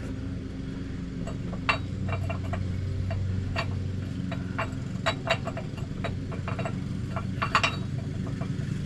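Light metallic clinks and ticks at irregular intervals as the spare tire's hoist cable and retaining hardware under an SUV are handled to free the lowered tire, over a steady low hum.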